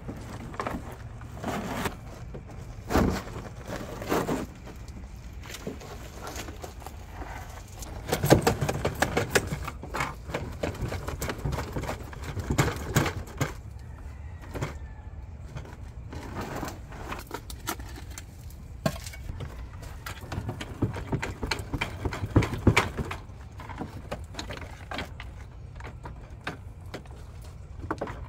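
Irregular plastic clicks, knocks and scrapes as a GE water softener's control valve head is handled and fitted onto its bypass valve, over a steady low rumble.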